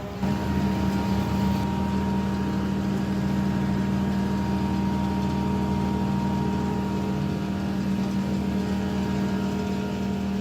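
An off-road vehicle's engine running at steady revs: a constant drone that neither rises nor falls.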